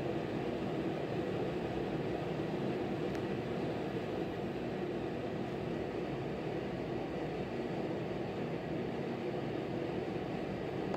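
Steady aquarium aeration: an air pump running and bubbling in the fry tank, a constant low hiss and hum without breaks.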